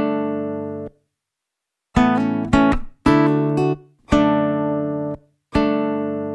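Background music: plucked-string chords, each ringing for about a second and then stopping abruptly, with dead silence between some of them. There is a silent gap of about a second near the start, then several chords in a row.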